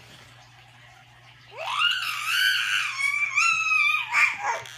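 A baby's long, high-pitched squeal, starting about a second and a half in: it rises in pitch, wavers, then drops away and stops near the end.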